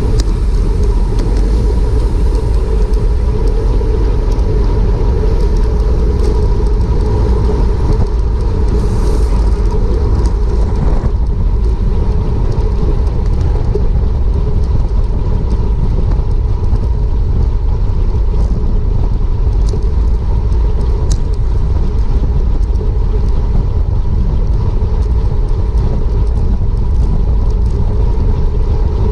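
Wind rushing over a bicycle racer's GoPro microphone at race speed: a loud, steady, deep rumble with a faint hum above it.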